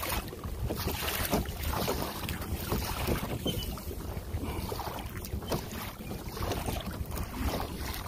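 Wind buffeting the microphone, a steady low rumble with uneven gusts, over water splashing against a kayak.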